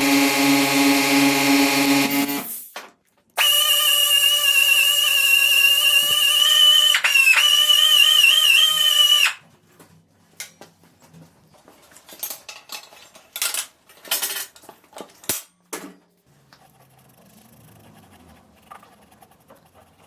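A high-speed power tool whining with a strong pitched hum, stopping about two and a half seconds in. It starts again a second later and runs for about six seconds, its pitch dipping and wavering as it works. Then come scattered clicks and handling knocks.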